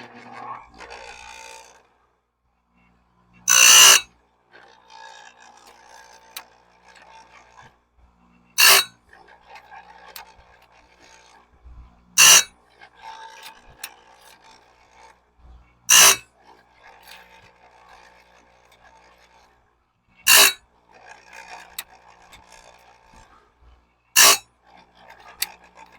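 Electric chainsaw-chain grinder sharpening a bandsaw-mill blade one tooth at a time: six short, loud grinds about every four seconds as the wheel is brought down onto each tooth, with a quieter rasp between them.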